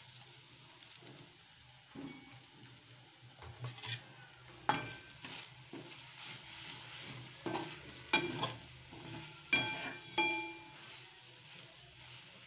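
A spatula stirs and tosses noodles in a metal kadai, striking the pan several times with sharp knocks that ring briefly, over a soft sizzle of frying.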